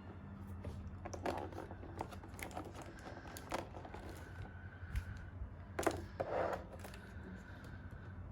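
Plastic packaging and figure parts being handled: scattered crinkles, rustles and light clicks, the loudest about a second in, midway and near the end, over a steady low hum.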